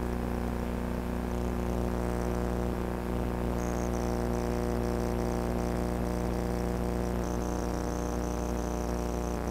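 Background music of long, held chords with a steady bass.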